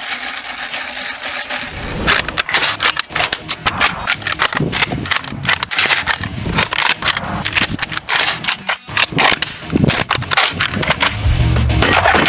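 Firearm actions being worked in quick succession: metallic clacks of bolts and levers cycling and rounds being chambered, mixed with gunshots, with a heavier thump near the end.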